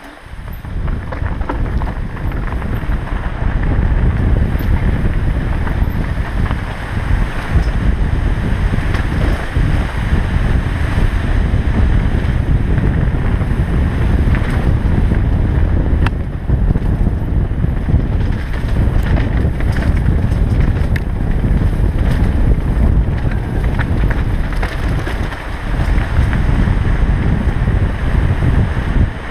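Wind buffeting the microphone of a body-mounted action camera on a fast mountain-bike descent, with the Specialized Enduro's tyres rolling over dirt and gravel and the bike rattling in short, frequent clicks. The rush grows louder over the first few seconds, then stays loud.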